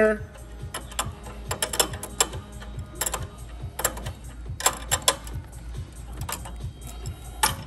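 Irregular metallic clicks and clinks of a steel wrench being set on, turned and reset on a stainless tube fitting as it is tightened, coming in small clusters.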